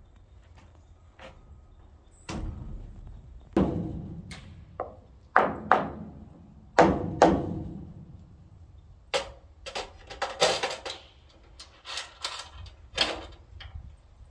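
Irregular wooden knocks and thunks, about a dozen of them, from lumber being handled while framing a barn loft floor. The loudest come as close pairs about half a second apart near the middle.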